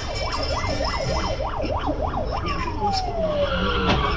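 Police car siren yelping quickly up and down, about three cycles a second, then sliding down in one long falling wail. Near the end comes a sharp crash as the police car collides with another car.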